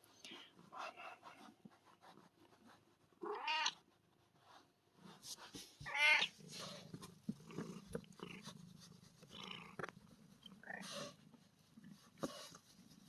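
Kitten meowing repeatedly: about five separate meows, the loudest about six seconds in.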